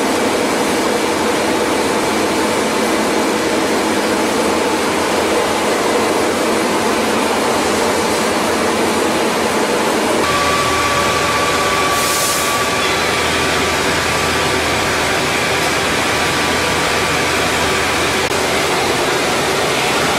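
Rotary drum wood dryer and its air ducting running, a steady dense rushing machine noise. About halfway through the sound fills out lower down and a steady high whine comes in, stopping shortly before the end, with a brief hiss soon after it starts.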